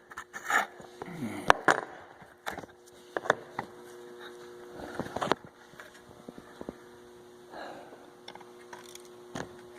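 Scattered clicks and knocks of hand tools and hardware being handled while a light fixture is taken down, over a faint steady hum.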